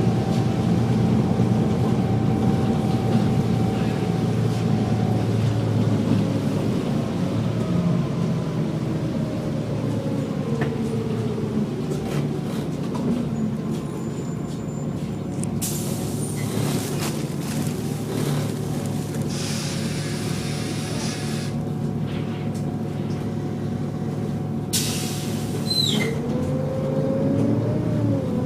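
Volvo B7TL double-decker bus heard from on board: the engine runs with a whine from the driveline whose pitch falls as the bus slows, then rises again near the end as it pulls away. There are two short bursts of hissing air, one around the middle and one near the end.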